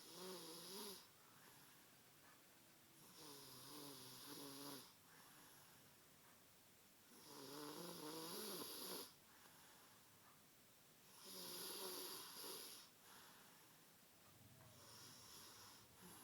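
A sleeping person snoring: five long snores about every four seconds, each a wavering, buzzing drone with breathy hiss, the last one fainter.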